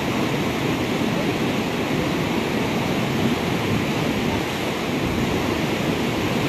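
A river in flash flood after heavy rain: fast, muddy water rushing past the bank with a loud, steady rush.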